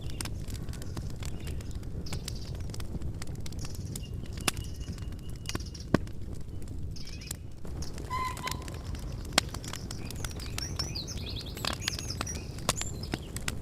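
Campfire crackling, with a sharp pop every few seconds over a steady low noise bed. Small birds chirp in the background, with a quick run of high chirps toward the end.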